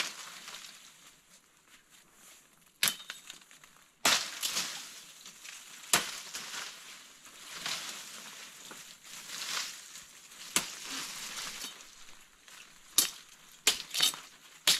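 Knife or machete chopping rattan stems and stripping off their spiny sheath: sharp, irregular cracks, with rustling and snapping of the cut stems and leaves in between.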